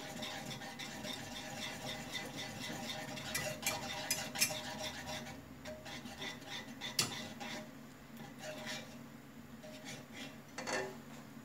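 Small wire whisk stirring in a small enamel saucepan, with light metal taps and scrapes against the pan, as nappage glaze and glucose syrup melt for a nougat. The taps thin out in the second half.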